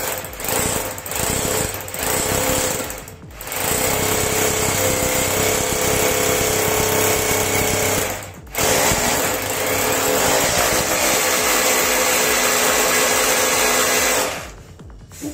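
Corded electric drill with an 8 mm masonry bit boring into a tiled floor. It starts in a few short bursts, then runs steadily, stops briefly about eight seconds in, and cuts out near the end.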